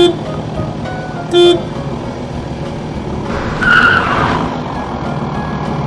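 Truck engine running steadily, with two short horn toots about a second and a half apart, then a brief hissing whoosh lasting about a second, a little past halfway.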